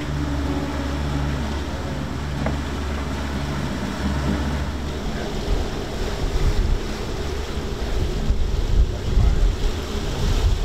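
Wind buffeting the microphone and waves washing past the hull of a sailing catamaran under way at sea, with gusts growing heavier later on.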